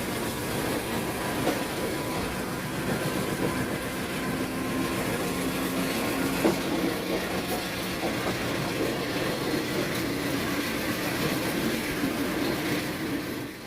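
GE U18C (CC201) diesel-electric locomotive's engine running hard in throttle notch 7 as the train accelerates, a steady loud drone.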